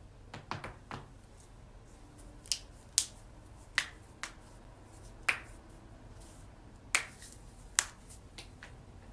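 Joints cracking during a chiropractic back adjustment: a string of sharp, short pops, about a dozen and irregularly spaced, with the loudest near three seconds, five seconds and twice between seven and eight seconds in.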